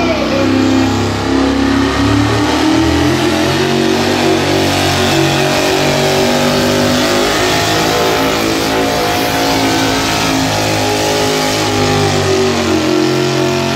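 Pulling pickup truck's engine running loud at high revs under full load as it drags a weight-transfer sled, the pitch climbing a little in the first seconds and then held steady through the pull.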